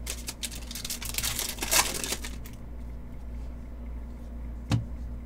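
Crinkling and rustling of trading cards and their foil pack wrapper being handled, densest in the first two seconds, then one short soft knock near the end, over a low steady hum.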